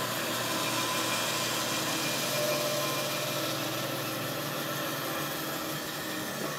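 Bandsaw running steadily as a thick soft-maple rail is fed into the blade up to a stop block, cutting a stopped notch into the end of the board.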